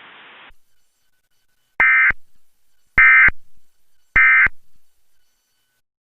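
Emergency Alert System end-of-message tones: three short bursts of digital SAME data warble, evenly spaced about a second apart, marking the end of the alert.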